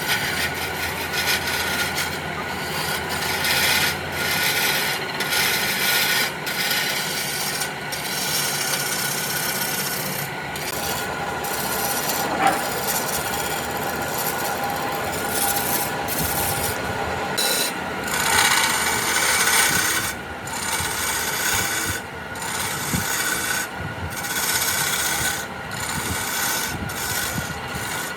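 Wood being scraped or sanded by hand, a continuous rasping rub broken by short irregular pauses between strokes.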